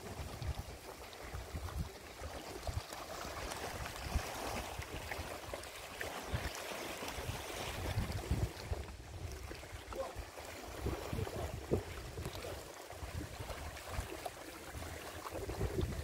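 Wind buffeting the microphone in irregular gusts over the steady wash of small sea waves.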